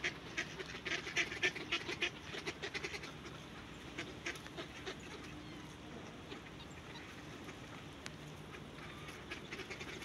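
A flock of mallard ducks quacking, with dense overlapping calls in the first three seconds that thin out to occasional quacks afterwards.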